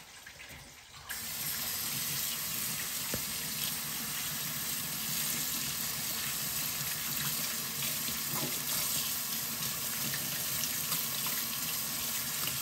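Kitchen tap turned on about a second in, then running steadily into the sink as bananas are washed under it.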